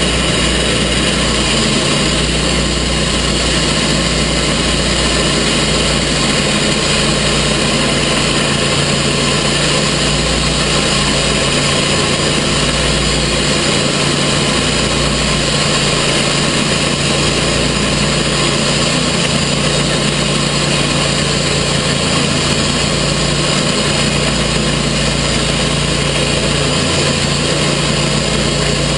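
Gas engine of a TimberKing portable sawmill running steadily at an even speed, with no load or revving.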